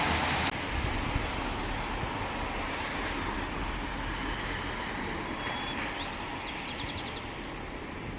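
Steady city street traffic noise in the rain, with a short high whistle and a quick run of rising chirps about six seconds in.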